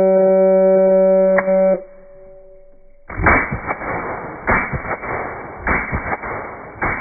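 A shot timer's start beep, slowed to a low steady tone, holds for about two seconds and stops. After a short pause, slowed-down suppressed AR-15 shots follow, four drawn-out reports about a second apart.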